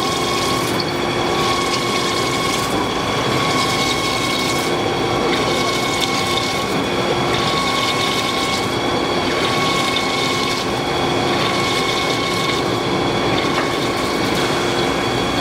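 CNC plate drilling machine running a 22 mm carbide drill through 30 mm steel plate: a steady mechanical cutting whine with several held tones over a hiss, the tones fading and returning every couple of seconds.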